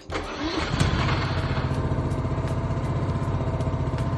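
Ride-on lawnmower's small engine starting about a second in, then running steadily with an even, rapid pulse.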